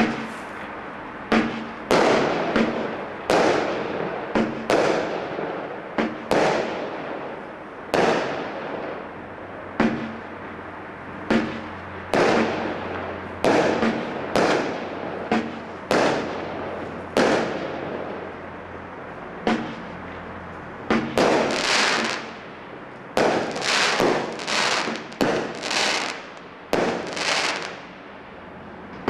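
Consumer firework barrage cakes firing a long run of shots, each a sharp bang followed by a short fading tail, about one or two a second, coming faster in the second half.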